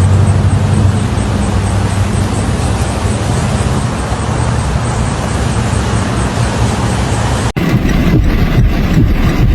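A car driving in heavy rain: a steady low engine hum under a wash of noise. About seven and a half seconds in, it cuts abruptly to a rougher, choppier rush.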